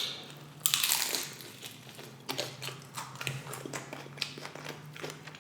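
Close-up crunching of tortilla-chip nachos being bitten and chewed: a loud crunchy bite about a second in, followed by smaller crunches and clicks.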